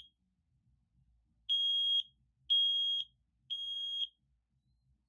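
Kidde i9010 battery-powered smoke alarm sounding its test alarm in the temporal-three pattern, the standard smoke-alarm evacuation signal. The tail of one beep is followed by a pause, then three high-pitched beeps, each about half a second long and a second apart. It stops about four seconds in.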